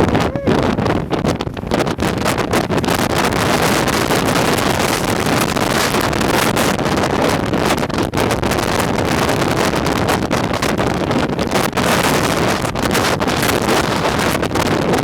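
Very strong gusting wind, about 90 mph, buffeting the microphone: a loud, continuous roar of wind noise that flutters rapidly in level.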